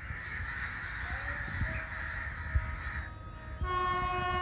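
Crows cawing for the first three seconds, then a PHA-20 diesel locomotive's horn sounding a steady, loud chord-like blast that starts about three and a half seconds in and carries on.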